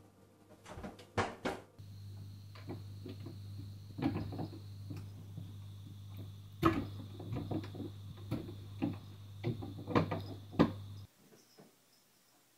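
Plastic cat flap clacking and knocking as a cat pushes through it, an irregular run of sharp knocks with a few louder bangs, over a steady low hum.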